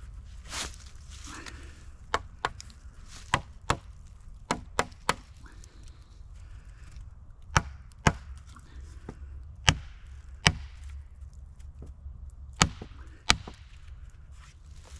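Wood being chopped with a hand tool: about a dozen sharp, irregularly spaced strikes, often two in quick succession.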